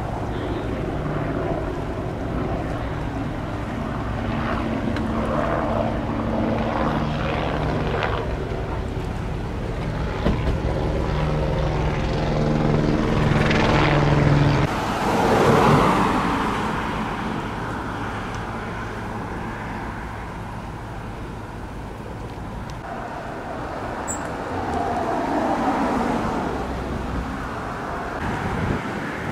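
A steady engine drone with a few fixed tones, which gives way about halfway through to a loud swelling rush of noise, then a softer steady noise.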